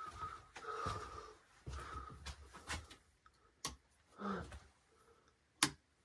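Faint footsteps and shuffling in a small room, with two sharp clicks about three and a half and five and a half seconds in.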